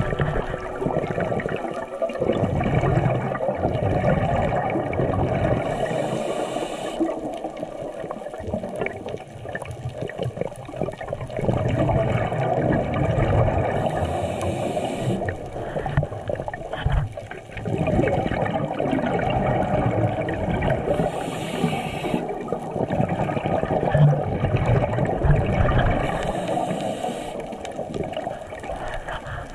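Underwater bubbling and rushing water noise, loud throughout, with a short hiss about every seven seconds.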